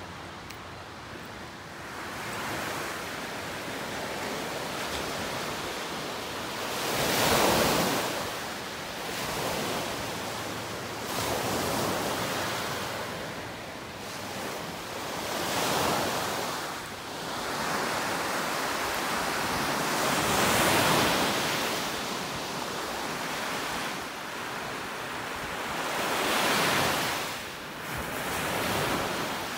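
Small Lake Ontario waves breaking and washing up a sandy beach. The surf swells and fades every few seconds, with several louder surges.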